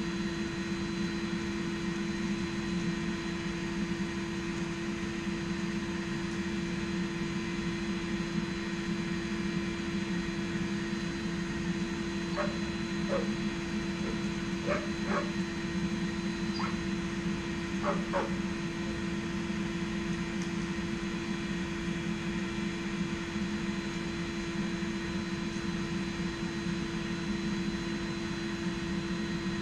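Steady hum of a forge's electric air blower running, with about seven short dog barks in the middle.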